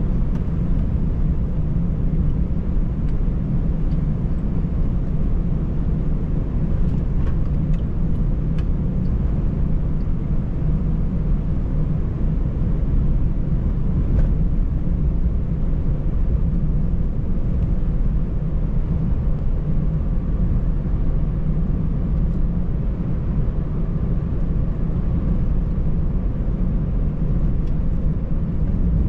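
Scania 590S truck's straight-six diesel engine and road noise heard from inside the cab while driving at a steady pace: an even, low drone. A few faint clicks are heard now and then.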